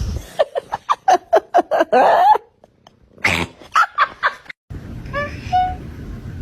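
A cat making a rapid string of short vocal calls, about four a second, then a brief pause and another run. Near the end the sound cuts to a different recording with a few short, high cat calls over background noise.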